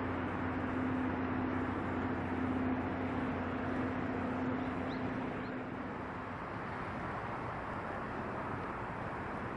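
Harbour background noise: a steady rushing sound under a low mechanical hum that fades out about six seconds in. A faint short chirp comes about five seconds in.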